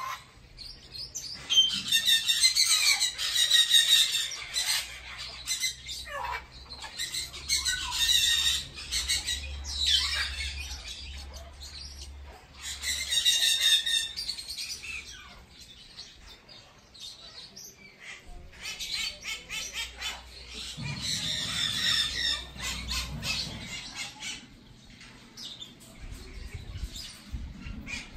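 Parrots screeching in bouts of harsh, rapidly pulsed calls, four or five bouts a few seconds apart.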